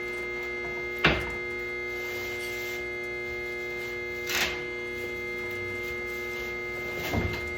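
A steady hum made of several fixed tones, with a sharp knock about a second in and another, softer one a little past the middle.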